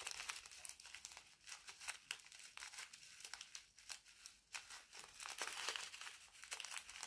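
Small plastic zip-lock bag of resin diamond painting drills crinkling as it is squeezed and rubbed between the fingers. Quiet, irregular crackles, a little denser about five to six seconds in.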